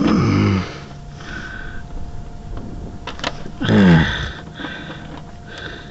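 A man grunting twice with effort while forcing a part into place, each grunt falling in pitch, about three and a half seconds apart.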